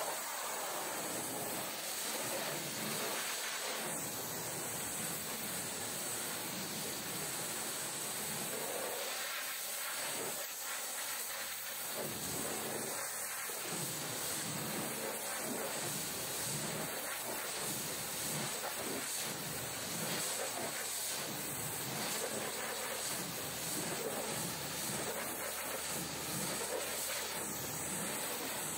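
Pressure washer's high-pressure water jet spraying, a steady hiss with slight rises and falls.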